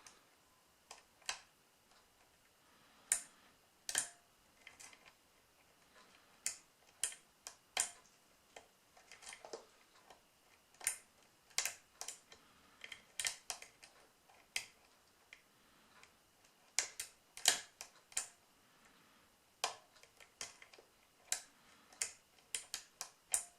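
A metal lock pick working inside a rim lock cylinder: irregular small metallic clicks and ticks, sometimes single and sometimes in quick runs of several a second, as the pick lifts and drops the pin stacks under tension.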